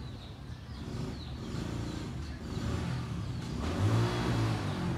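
Domestic cat purring close to the microphone, a low pulsing drone that swells and fades with each breath and grows louder about three seconds in.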